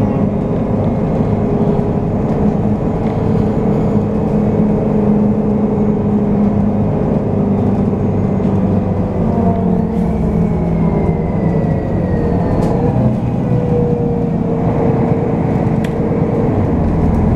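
City bus driving along, heard from inside the passenger cabin: steady engine and road noise whose tone shifts slightly with speed, with a faint whine falling in pitch about ten seconds in.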